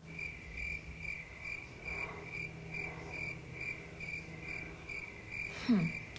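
Cricket chirping steadily, evenly spaced chirps at one high pitch, about three to four a second. A brief falling hum from a voice comes near the end.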